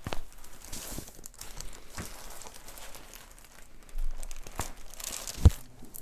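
Crinkling and rustling in a treatment room, broken by several sharp clicks; the loudest click, near the end, is a joint cracking during a chiropractic adjustment.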